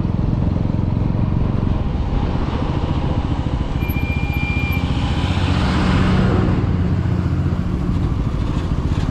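Bajaj Pulsar NS160's single-cylinder engine running steadily under way, with rushing wind and road noise. A brief thin high tone sounds about four seconds in, and a swell of rushing noise comes around six seconds.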